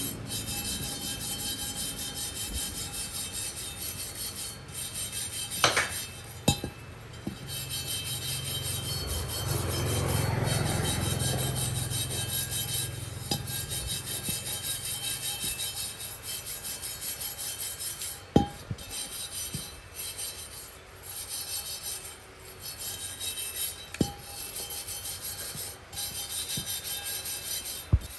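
Rapid back-and-forth scraping by hand, several strokes a second, with a few sharp knocks in between.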